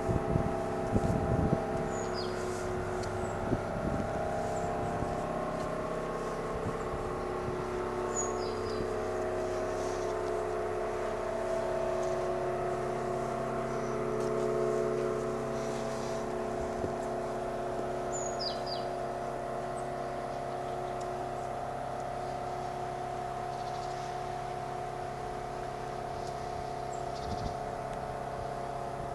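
A fountain giving off a strange steady drone made of several held tones that slowly shift and swell. Birds chirp briefly a few times over it.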